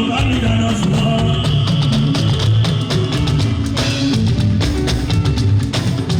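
Live Yoruba band music with busy, steady drumming under sustained instrument notes, and no singing.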